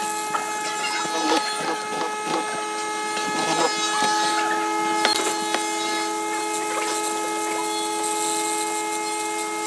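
Pieces of wood knocking and scraping against each other in irregular short knocks, over a steady, multi-toned hum that runs throughout.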